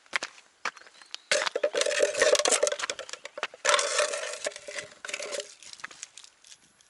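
Metal boot studs clattering and scraping on rock in two long bursts of a couple of seconds each, with scattered clicks before and after.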